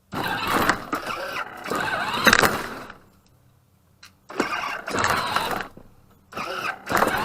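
Engine-start and revving sound effect from a ride-on toy car, coming in bursts a couple of seconds long with short gaps between them.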